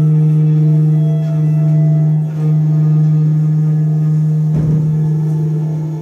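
Slow, drone-like improvised music: a clarinet holds one long, steady low note, with quieter sustained tones above it. A brief soft swish comes about four and a half seconds in.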